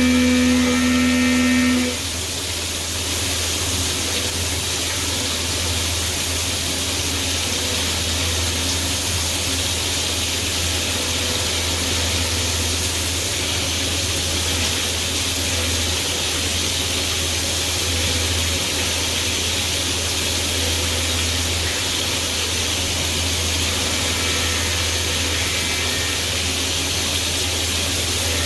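CNC milling machine running a program, cutting pockets into vise soft jaws. A loud steady whine sounds for the first two seconds and stops, then a steady rushing machine noise with a low hum carries on.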